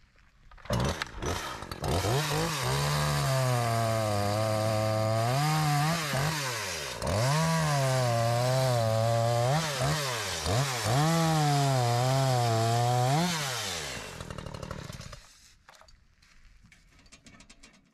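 Small Echo two-stroke chainsaw starting up about a second in and cutting through small birch logs, its engine pitch sagging under load and rising again between cuts, three times over. The engine stops near the end.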